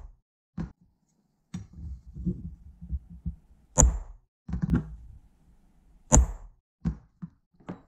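Steel pin punch held against an aluminium rudder part in a vise and tapped, a string of light metal taps with two sharper ringing strikes, one about four seconds in and another about two seconds later.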